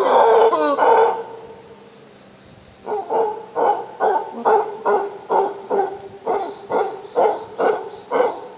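An animal calling: a loud burst of calls with sliding pitches in the first second, then, after a short lull, a steady run of short hoarse barking calls at about three a second for some five seconds.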